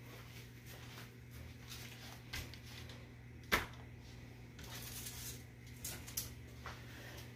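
Light rustling and scattered clicks of things being handled on a kitchen counter, with one sharper click about three and a half seconds in, over a faint steady low hum.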